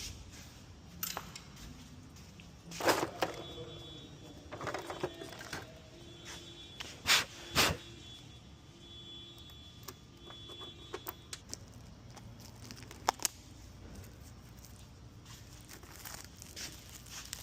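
Scattered clicks and knocks of tools and parts being handled during an oil change. There are sharper knocks about three seconds in, a close pair a little past halfway, and another about two-thirds through.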